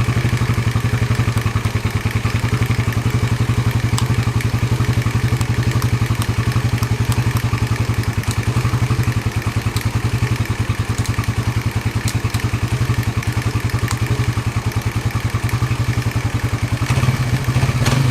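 Suzuki Raider 150 Fi's single-cylinder four-stroke engine idling steadily just after starting, with a light ticking from the engine that the owner puts down to it being freshly started.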